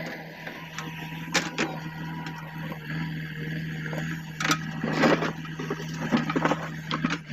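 JCB 3DX backhoe loader's diesel engine running steadily, with sharp knocks about a second and a half in and a run of clattering knocks in the second half.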